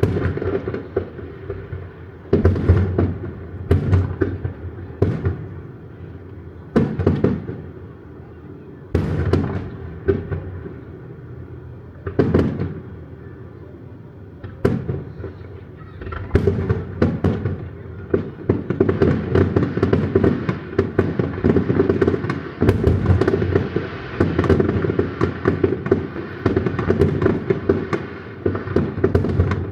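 Aerial fireworks: single shell bursts boom every second or two, then from about halfway in the bangs and crackles run together into a dense, rapid barrage, as in a fireworks grand finale.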